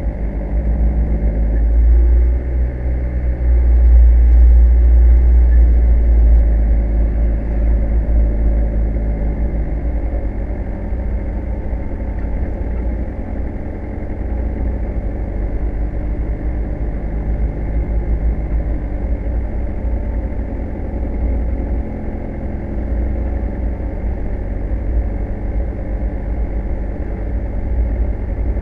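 Car engine and road noise while driving along a town street: a deep, steady rumble with the engine note rising and falling as the car changes speed, loudest a few seconds in.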